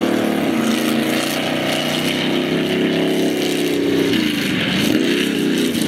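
Eight-cylinder pickup truck engine revving hard through a dirt slalom run. It holds a high pitch, then the revs drop and climb again about four seconds in as the truck turns and accelerates.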